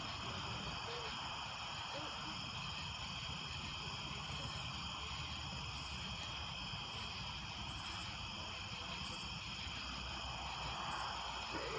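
Steady, shrill chorus of night insects, with a few short, very high buzzes from about four seconds in.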